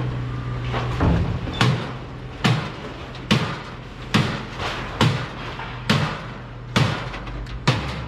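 Repeated hammer-like blows, about one a second and nine in all, each a sharp knock, over a steady low hum.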